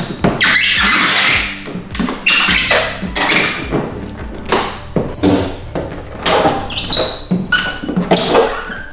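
Plastic squeegee strokes rasping over wet paint protection film on a car bonnet's edge, in a run of short strokes, with several brief squeaks from the film in the second half.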